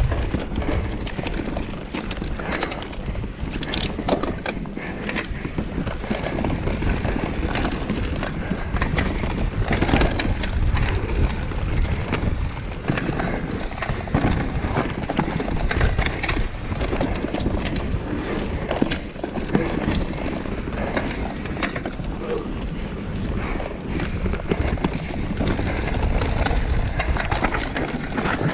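Enduro mountain bike descending a dirt trail at speed: tyres running over rough ground, with the bike clattering and knocking continuously.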